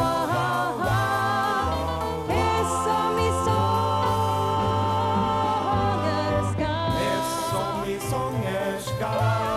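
A woman singing long held notes in a show tune, over instrumental backing with a steady bass line.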